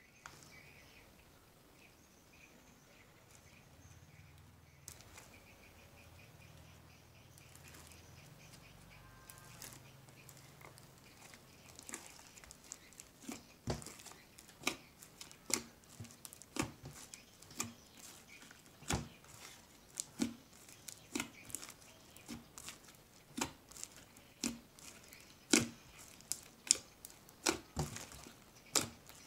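Slime studded with foam beads being kneaded and squeezed by hand in a glass bowl: faint at first, then from about twelve seconds in a run of sharp pops and clicks about once a second as the slime is squished and folded.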